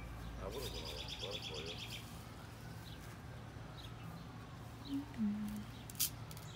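A songbird trilling in a fast run of repeated high notes for about a second and a half, with a few softer chirps around it. Around five seconds in there is a brief low two-note hum from a person, and near the end a sharp click.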